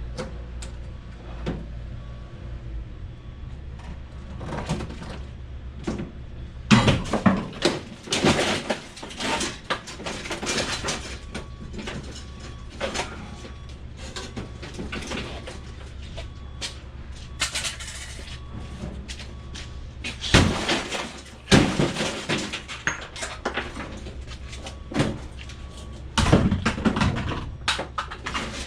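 Irregular knocks and clattering of scrap being handled and moved about, over a steady low hum. The clatter comes in loud spells about a third of the way in, about two-thirds in, and near the end.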